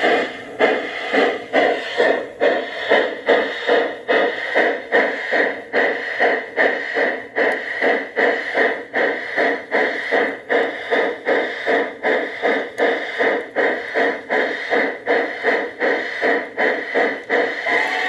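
Steam chuff sound from an LGB model locomotive's stock analog sound card, played through its small onboard speaker: a steady, even beat of about two chuffs a second.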